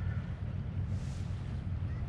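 Wind buffeting the microphone, a steady low rumble, with a soft hiss swelling briefly about a second in.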